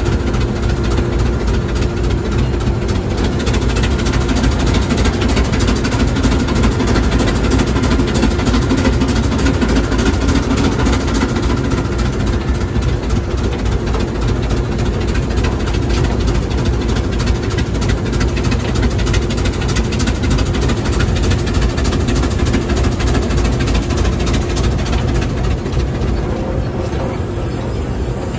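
Steam road locomotive heard from its footplate while driving along: the steady, loud running noise of the engine and gearing. A faint steady hum fades out about halfway through.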